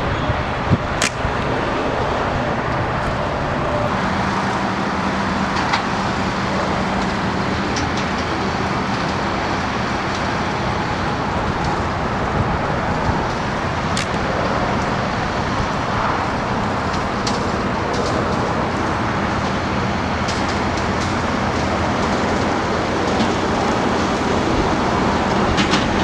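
Steady wind noise buffeting the camera's microphone, with a few faint ticks.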